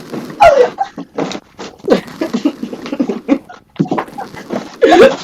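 Wordless vocal noises from people fooling around: pitched yells near the start and near the end, with mouth noises and scattered knocks and clicks in between.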